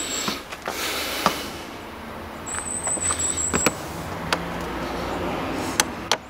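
Clicks, small knocks and rustling of a hand and sleeve working at a car battery's positive terminal, with a thin high whine heard twice for about a second each.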